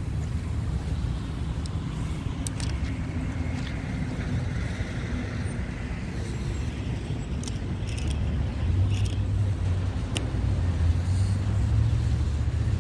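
Low, steady engine rumble that grows louder about two-thirds of the way through, with a few faint sharp clicks.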